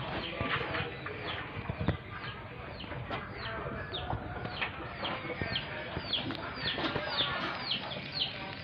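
Birds chirping: short, high chirps that slide downward, repeated about two or three times a second, over a busy background of farmyard noise.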